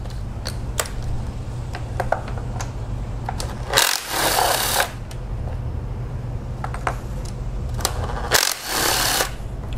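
Handheld cordless power driver spinning a socket in two short bursts of about a second each, backing out the intake manifold bolts. Light metal clicks of the tool and socket come between the bursts, over a steady low hum.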